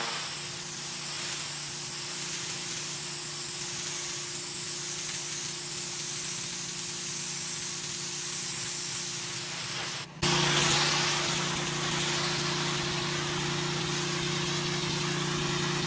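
Pressure washer spraying water onto a concrete sidewalk: a steady hiss over the machine's steady hum. About ten seconds in it breaks off briefly, then comes back louder.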